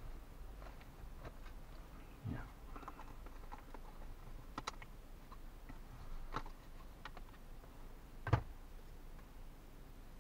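Thin precut wooden kit sheet being handled, with scattered small clicks and snaps as parts are pushed out of it. The loudest is a single sharp snap about eight seconds in.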